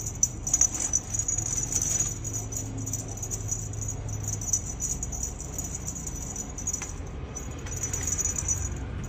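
Steady high jingling rattle, as of a small bell on a feather teaser wand being waved, dipping briefly a little after seven seconds in.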